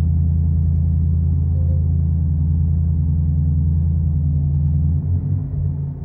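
Exhaust note of a 2022 Lexus IS 500's 5.0-litre V8 through a Kinney's Street Demon custom exhaust, a steady low rumble at idle. About five seconds in the note turns uneven and wavering.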